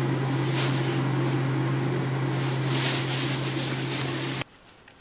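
Thin plastic bag crinkling and rustling as a cat moves with it caught around its body, over a steady low hum and hiss. It all cuts off suddenly about four and a half seconds in.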